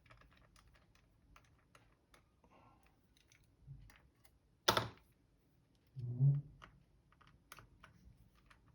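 Small tools and parts clicking and tapping while a laptop is worked on: a run of light clicks, a louder sharp click about halfway through, and a dull low knock a second or so later.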